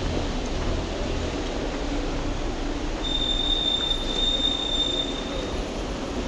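Passing train: a steady low rumble, with the wheels squealing on one high steady note for about two and a half seconds from about three seconds in.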